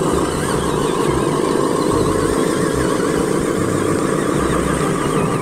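Radio-controlled model dump truck driving on a dirt track, its motor running steadily.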